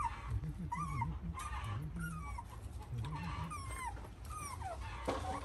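Hungry puppies whining and whimpering: a string of short, high-pitched whines, several a second, some falling in pitch.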